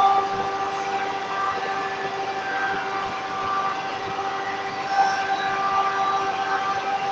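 Circular saw running with a steady whine while balsa wood blocks are fed into the blade; the sound swells briefly about five seconds in.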